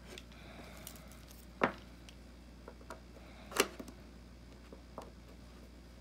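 Two sharp taps about two seconds apart, with a few fainter ticks, as a small screwdriver and an iPhone 6s screen assembly are handled on a wooden table.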